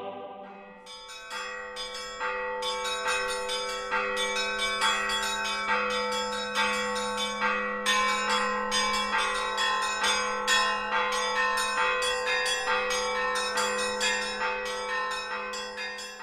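Church bells ringing a quick peal: small bells struck in rapid succession over the held ring of larger bells, fading away near the end.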